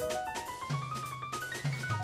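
Instrumental background music: a quick rising run of single notes over a held bass note, with the drums dropping out briefly.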